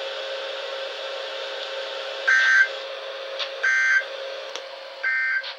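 Emergency Alert System End of Message: three short bursts of warbling digital data tones about a second and a half apart, heard over radio hiss with a faint steady hum. The bursts mark the close of the weekly test.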